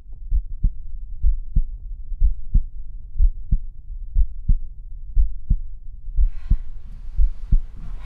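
Heartbeat sound effect: low double thumps, about one pair a second, like the beating heart that torments the narrator of Poe's 'The Tell-Tale Heart'. A faint hiss joins in about six seconds in.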